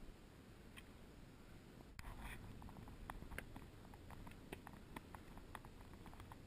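Near silence: faint background hush with scattered soft clicks and taps, more of them from about two seconds in.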